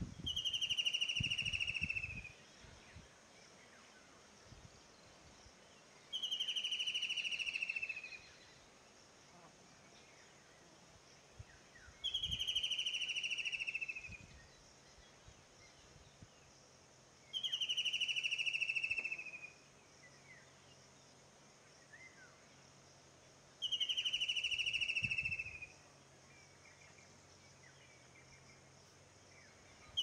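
White-throated kingfisher calling: five loud, falling, whinnying trills, each about two seconds long, repeated about every six seconds.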